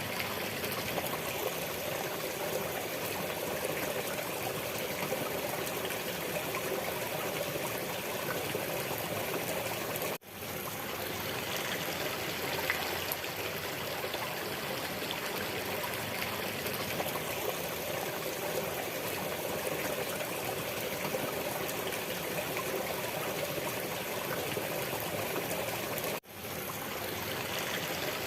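Steady running water like a stream, with two brief dropouts where the sound cuts out and quickly swells back, about ten seconds in and near the end.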